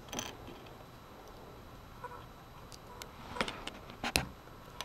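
A few small sharp clicks of hard plastic LEGO minifigure parts being picked up off a wooden table and pressed together, with quiet room tone between them.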